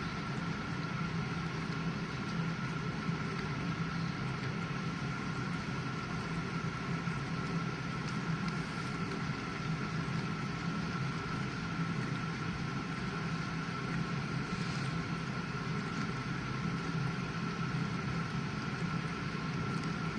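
GE dishwasher running mid-cycle: a steady low motor hum with a thin high whine.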